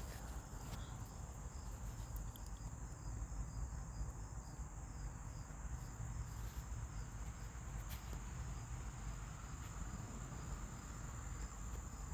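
Insects chirping, cricket-like: a steady high trill with a row of evenly repeating chirps, over a faint low hum.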